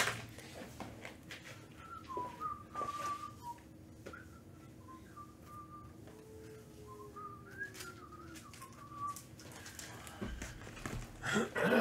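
A person softly whistling a wandering tune, the pitch stepping and sliding up and down, with a few light knocks of cardboard boxes being handled and a louder knock near the end.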